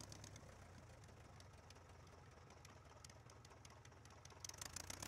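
Faint engine of a 1946 Aeronca Champ idling as the plane taxis, heard as a rapid, even ticking over a low hum. The ticking grows louder about four and a half seconds in.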